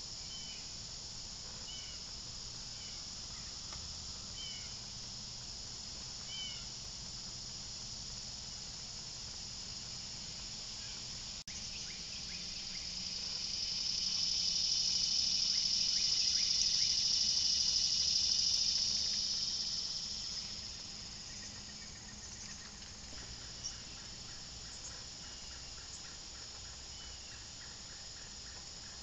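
Steady high insect buzzing, with one cicada-like buzz swelling loud in the middle and fading away over several seconds. A few short rising bird chirps in the first few seconds.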